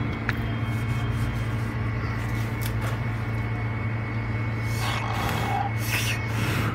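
Steady low machine hum with a thin high whine over it, with brief rustling from the phone being handled near the end.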